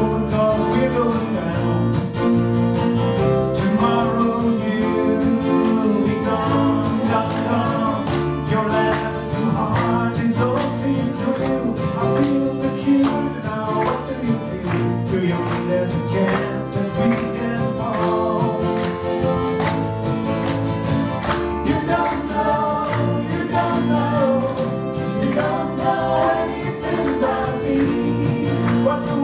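Live acoustic band playing a song, with guitar and singing voices.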